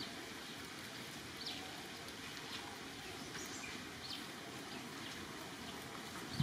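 Steady outdoor background noise, with a few faint, short high chirps scattered through it.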